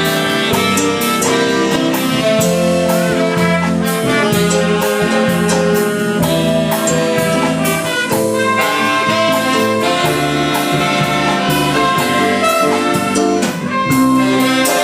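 A dance band's horn section, saxophone and brass, playing a jazzy arrangement over a steady drum beat.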